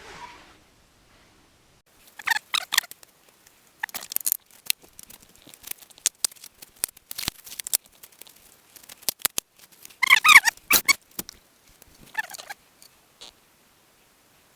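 Ring Ease oil additive being poured from its bottle, glugging in three bouts with a warbling, bubbly pitch, amid scattered clicks and taps of the bottle being handled.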